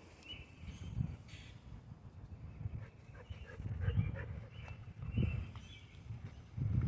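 Dog drinking creek water, faint irregular lapping with a few soft low thuds.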